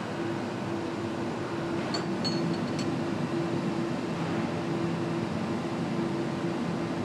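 Steady factory machinery hum at a measuring station, with a low tone pulsing on and off evenly and a few short high clicks about two to three seconds in.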